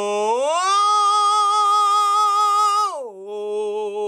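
A man singing one sustained vowel as a vocal interval exercise: the note slides smoothly up an octave about half a second in, is held with a light vibrato, then slides back down to the starting note about three seconds in.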